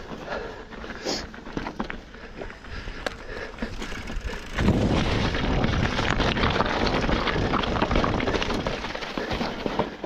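Specialized Fuse Comp 29 hardtail mountain bike rolling along a dirt trail: tyre crunch and clicking rattles from the bike. About four and a half seconds in it turns much louder and rougher, a dense rumble that lasts almost to the end.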